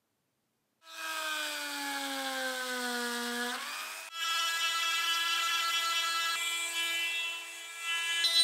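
Small electric power tool motor running a job, cutting in suddenly about a second in. Its whine sinks slowly in pitch as it is pressed into the work and rises again as the load comes off, then after a break a few seconds in it runs on at a steady, higher pitch.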